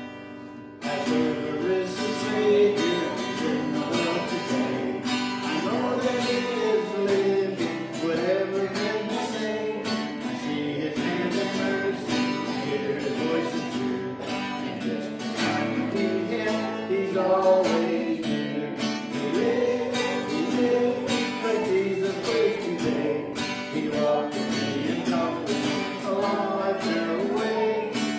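Live worship music led by a strummed acoustic guitar, starting about a second in.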